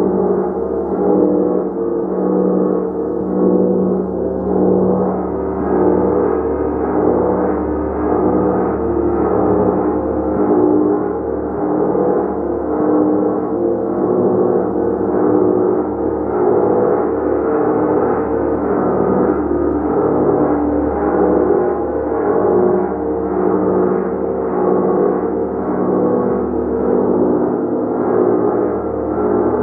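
Gong played continuously with soft, repeated mallet strokes. Its overlapping tones build into a dense, sustained wash that swells and eases every couple of seconds, with no single sharp strike standing out.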